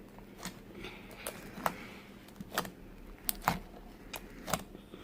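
Homemade glue slime being squeezed and kneaded by hand, giving irregular sharp wet clicks and pops about once or twice a second.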